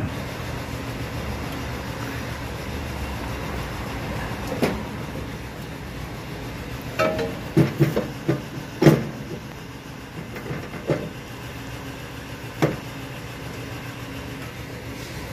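Scattered metal clinks and knocks as a tractor PTO driveshaft yoke is worked onto the splined input shaft of a rotary tiller gearbox, the loudest cluster about halfway through, over a steady low hum.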